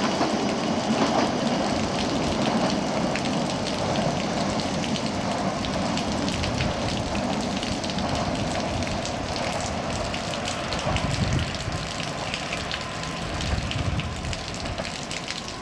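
Steady rain pattering and dripping, with fine ticks of drops throughout. Over the first few seconds the rumble of a departing diesel-hauled narrow-gauge train fades away.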